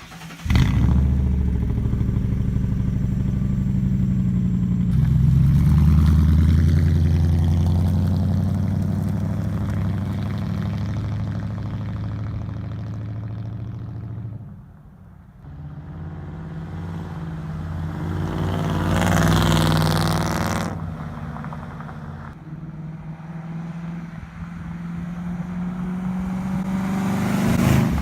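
2002 Mercury Grand Marquis's 4.6-litre V8 running through true dual exhaust with glasspacks, a deep, throaty exhaust note that cuts in suddenly. It swells as the car comes close and passes about two-thirds of the way in, then fades and swells again near the end.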